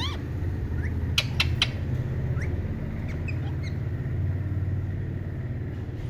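A few short rising chirps from caged rose-ringed parakeets, with three sharp clicks a little over a second in, over a steady low hum.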